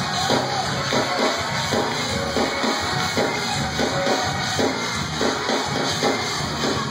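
Church band playing fast, driving music with a drum kit and guitar.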